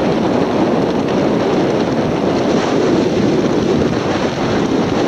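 Gale-force wind buffeting the microphone, a loud, steady rushing noise.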